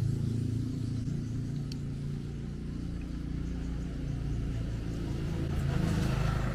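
A motor engine running with a steady low hum, getting a little louder near the end.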